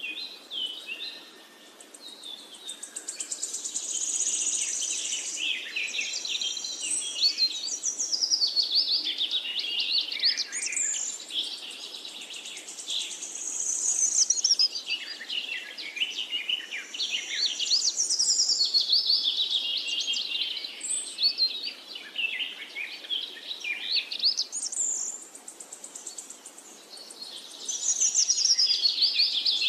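Many small birds chirping and twittering together in a dense, overlapping chorus of quick high notes. It swells and fades in waves, dropping away for a few seconds near the end and then rising again.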